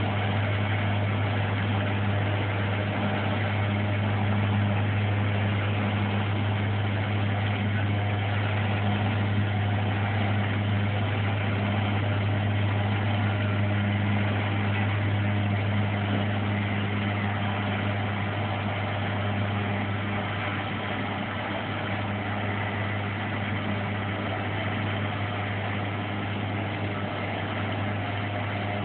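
Steady low hum of an idling pickup truck engine, running while the truck's boat loader slowly lowers the boat off its rack, easing slightly about two-thirds of the way through.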